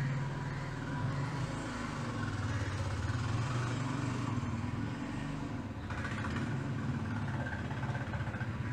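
A motor running steadily: a low hum with a hiss over it.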